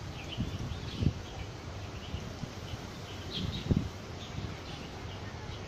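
Small birds chirping in short scattered calls over a steady low rumble, with a few soft low thumps, the clearest about a second in and past the middle.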